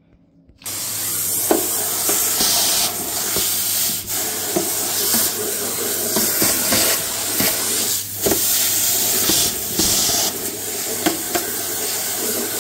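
Vacuum cleaner switched on about a second in and running steadily, its wand sucking spilled fennel seeds out of a kitchen drawer, with many short clicks as the seeds rattle up the tube and the nozzle knocks the drawer.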